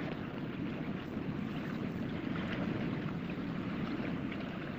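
Steady rumbling noise of wind and water, with no horn or whistle sounding.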